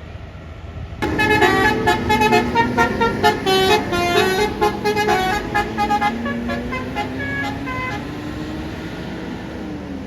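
Bus 'basuri' telolet horn playing a quick tune of stepped notes, starting suddenly about a second in over the bus engine's rumble. The notes thin out in the second half, leaving a low tone that slides slowly in pitch.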